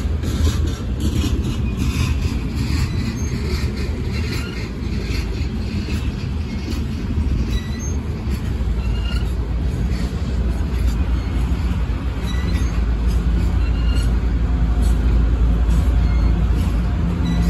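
Coal train's gondola cars rolling past close by: a steady low rumble of wheels on rail, with short high squeals from the wheels now and then. Toward the end the rumble grows and a steady engine drone comes in as a Union Pacific diesel locomotive in the train approaches.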